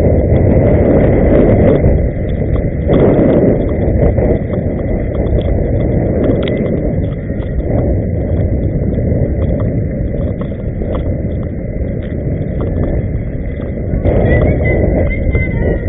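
Steady rolling rumble of inline skate wheels on asphalt, with wind noise on the microphone. It swells around three seconds in and again near the end.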